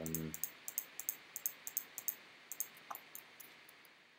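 Light, irregular clicks of a computer mouse and keyboard, roughly two or three a second, as a 3D viewport is worked. A brief hummed 'mm' from a voice comes right at the start.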